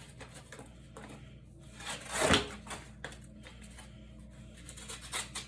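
Folding knife blade drawn through corrugated cardboard: one slicing, tearing cut that swells and peaks about two seconds in, with a few faint scrapes and ticks around it.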